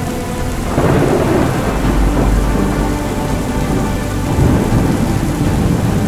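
Thunderstorm: steady heavy rain with thunder rumbling, the rumble swelling about a second in.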